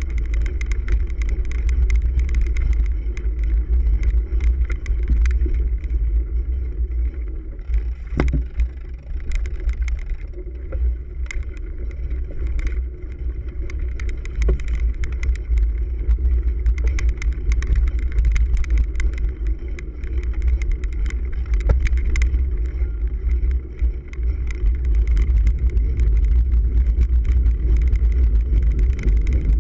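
Cyclocross bike ridden over grass, leaf litter and dirt, heard from a handlebar-mounted camera: a steady deep rumble of tyres and wind on the microphone, with frequent small rattles and knocks from the bike. It gets louder and steadier near the end, where the bike rolls onto a gravel path.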